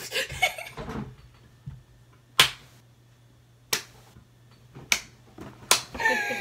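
Single sharp hand claps, about five of them spread a second or so apart, the loudest about two and a half seconds in.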